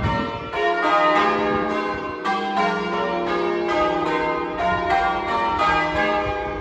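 Church bells change ringing: one bell after another struck in quick, even succession, about three strokes a second, each note ringing on under the next.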